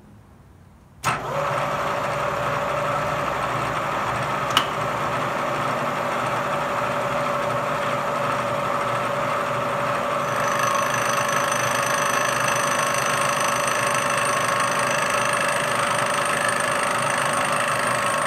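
Vertical milling machine's spindle switched on about a second in and running steadily, with a single click a few seconds later. From about ten seconds in, higher whining tones join as the end mill cuts into the side of an aluminium Caterpillar 342 engine piston.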